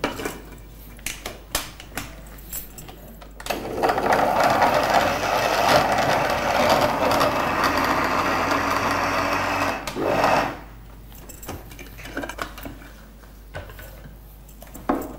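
Electric mixer-grinder with a steel jar grinding slices of white bread into crumbs: the motor starts about three and a half seconds in, runs for about seven seconds with a brief dip just before it stops. Light clicks and knocks of the jar being handled come before and after.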